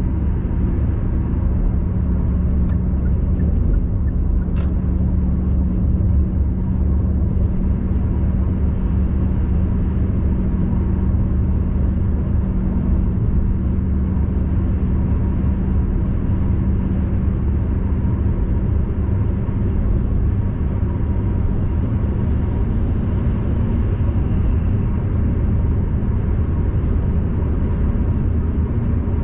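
Road noise inside a car cruising on an expressway: a steady low rumble of tyres and engine, with a constant hum.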